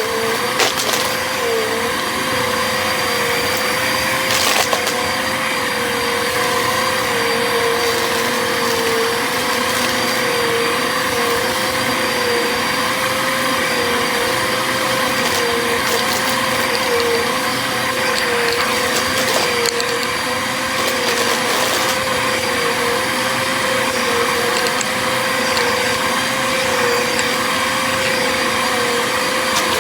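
A Bissell vacuum cleaner running steadily, its motor giving a high, slightly wavering whine over the rush of air. A few scattered clicks come from debris being sucked through.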